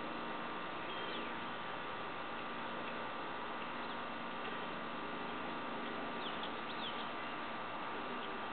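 Steady outdoor hum and hiss with a few short bird chirps, one about a second in and a small cluster around six to seven seconds in.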